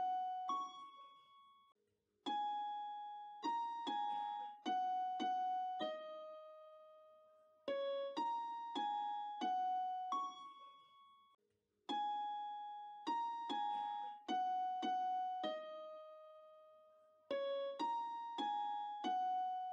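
Background music: a slow keyboard melody of single struck notes in short falling phrases. Each note rings and fades, with brief pauses between phrases.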